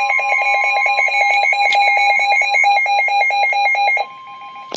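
Weather radio alert: loud rapid electronic beeping, about five or six beeps a second, over the steady NOAA Weather Radio warning alarm tone that signals a warning such as a tornado warning. The beeping stops about four seconds in, leaving the steady tone, and a sharp click comes near the end.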